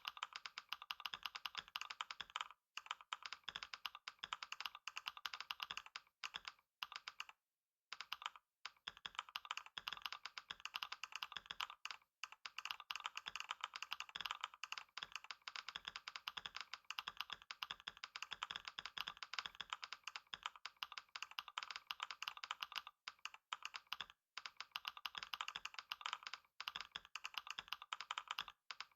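Computer keyboard typed on at high speed, a fast continuous stream of key clicks broken only by a few momentary pauses, the longest about seven and a half seconds in.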